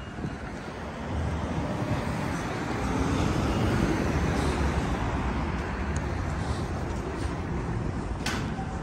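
City street traffic noise from passing motor vehicles, growing louder about a second in as traffic passes close. A short sharp click comes near the end.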